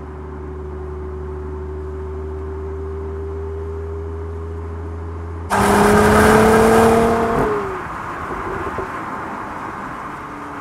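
Mercedes-AMG GLC 43 Coupe's 3.0-litre biturbo V6 running steadily at cruise, then, about five and a half seconds in, a sudden much louder burst of engine and exhaust as the car accelerates, its pitch rising slightly for about two seconds before dropping away.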